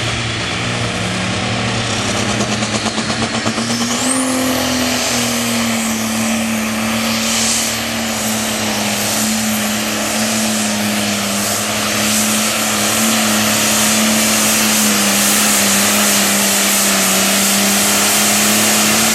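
A Super Farm class pulling tractor's turbocharged diesel engine runs hard at full throttle during a pull, its engine note stepping up about four seconds in. A high turbo whine rises at the same moment and then holds, and the overall noise keeps building toward the end.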